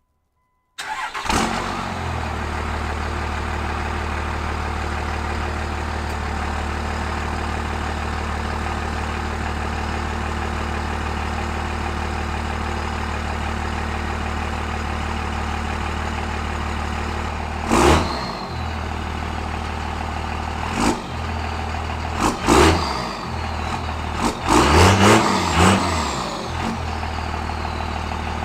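A 2nd-gen 24-valve Cummins turbodiesel starts and settles into a steady idle through a newly fitted exhaust stack. In the second half, about six quick throttle revs each rise and fall, with a high whistle gliding along with them.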